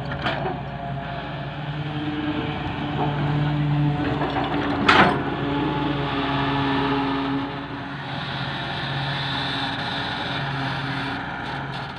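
Heavy diesel machinery running at a sand pit, a steady engine hum that swells and drops with load. There is one sharp knock about five seconds in.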